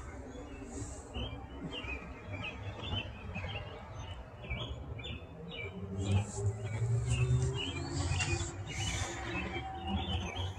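Birds chirping repeatedly in short calls, over a low rumble that grows louder about six seconds in.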